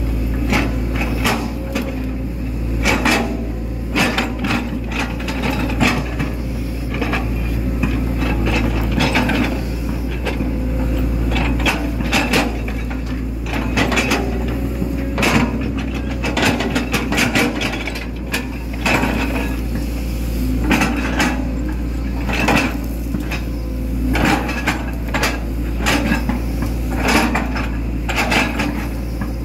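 Hitachi Zaxis 110 excavator's diesel engine running steadily from the operator's seat, with frequent irregular clanks and knocks as the bucket and its linkage scrape and smooth wet mud.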